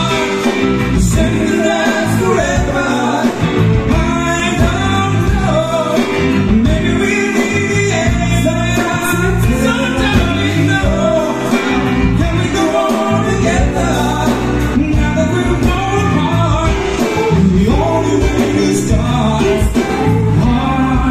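Live band playing a song, with electric bass, electric guitar, keyboard and drums, and a voice singing over them.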